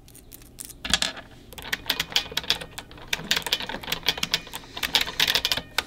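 Mechanical keyboard being typed on: a quick, uneven run of clacking keystrokes, a few scattered presses at first, then steady fast typing from about a second in.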